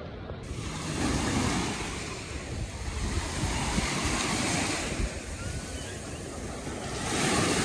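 Small waves breaking and washing up onto a sandy beach, swelling about a second in and again near the end, with wind buffeting the microphone.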